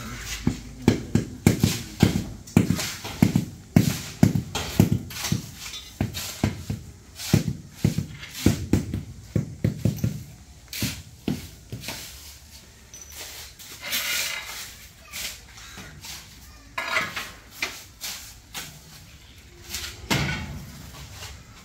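Rubber mallet tapping vitrified ceramic floor tiles down into a wet mortar bed: a quick run of dull knocks, about two a second, that stops about halfway through. Near the end comes a short wet splash of cement slurry poured onto the bed.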